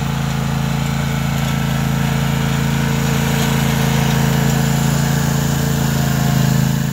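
Engine of a Bad Boy zero-turn riding mower running steadily as the mower drives along, growing a little louder near the end.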